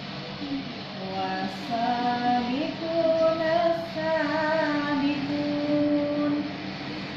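Music with a high singing voice holding long notes that slide from one pitch to the next.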